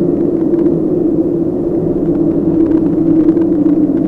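Dark horror ambience: a steady low droning tone over a rumbling wash, with a few faint crackles scattered through it.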